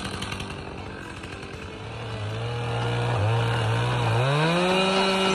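Two-stroke chainsaw running at part throttle, its engine note wavering; about four seconds in it revs up smoothly to full throttle and holds there.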